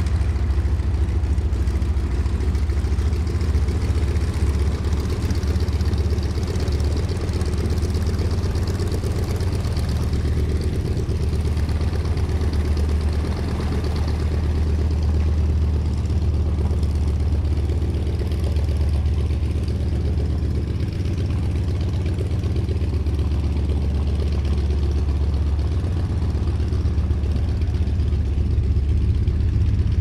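The 1943 Beech D17S Staggerwing's nine-cylinder Pratt & Whitney R-985 radial engine runs steadily at low taxiing power, a low rumble that holds an even level throughout.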